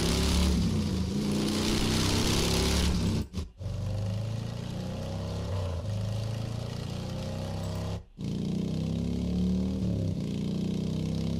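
Three motorcycle recordings played back one after another, each with the engine running steadily. The first, the 4-inch Race Tour BCN, has a strong hiss high in the sound, which gives it its high sharpness, and it cuts off about three seconds in. After a brief break comes the SPO Quiet B, much duller in the highs, and from about eight seconds the Quiet Tour SB, the dullest of the three.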